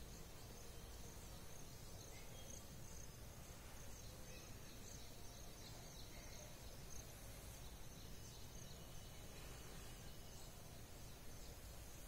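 Quiet background noise with a faint high-pitched chirping that pulses at a steady rate.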